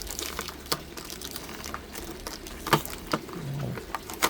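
Scattered sharp clicks and taps from hands handling the packaged Ingco automatic wire stripper, the loudest a little under three seconds in and another near the end.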